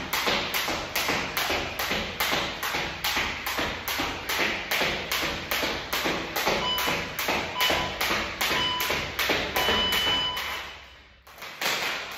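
Fast, even thuds from a person exercising, about three a second. A few short electronic beeps sound over them, then a longer beep, and the thuds stop about a second later.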